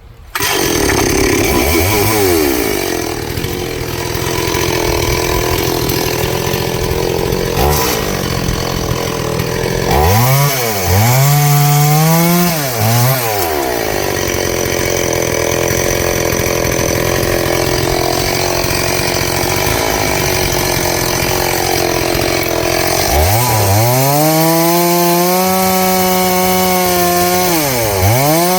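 Noker 381 chainsaw running throughout, cutting wood at a lower, steadier engine note. It revs up and back down three times in quick succession about ten seconds in, and holds a long high rev near the end.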